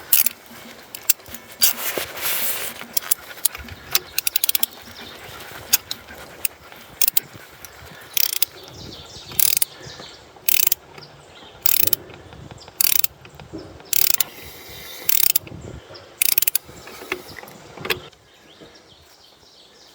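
Ratchet clicking in short strokes about once a second, after a stretch of irregular clicks and a longer rasp, as a steering bushing is worked down into place. The strokes stop a couple of seconds before the end.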